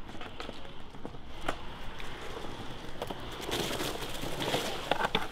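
Skateboard wheels rolling on rough concrete, with a few sharp clacks of the board. The rolling gets louder about three and a half seconds in, and clicks bunch up near the end.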